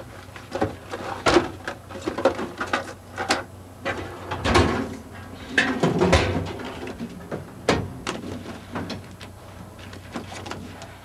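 Rummaging through an office desk drawer: objects shuffled and clattering, with a string of irregular knocks and clicks as the drawer is worked and shut.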